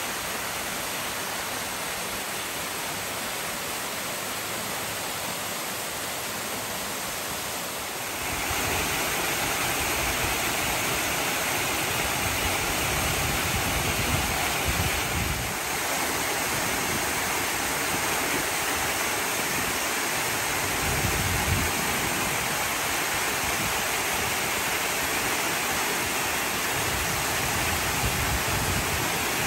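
Waterfall pouring down a rock face into a pool: a steady rush of water that grows louder about eight seconds in.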